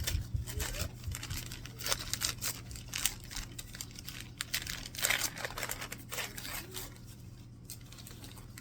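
Paper being torn and crumpled in irregular rustling bursts as a wrapped book is unwrapped, busiest past the middle and thinning out near the end.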